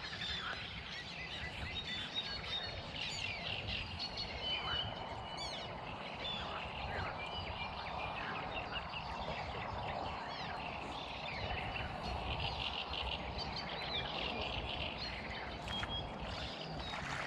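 Many small birds chirping and singing, short quick calls overlapping one another, over a steady low rumble.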